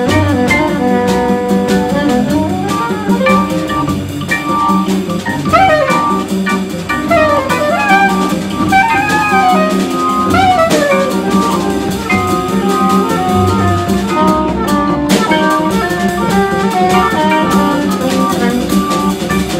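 Live organ-groove jazz quartet: a soprano saxophone plays a melody full of slides and bent notes over sustained organ chords, walking double bass and a drum kit with cymbals.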